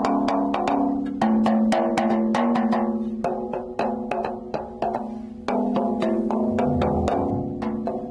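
Chopsticks tapping a rhythm on homemade balloon drums, balloons stretched over bowls, several players echoing each other with quick irregular taps, over background music with sustained chords.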